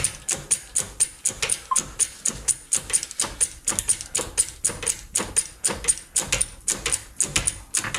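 Ratchet wrench clicking in quick, even strokes, about four to five a second, as it turns a puller to draw the failed bearing off the electric motor's shaft.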